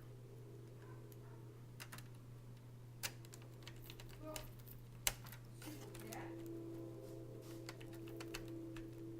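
Scattered faint clicks and taps of a laptop keyboard and its plastic parts being handled, with two sharper clicks about three and five seconds in, over a steady low hum.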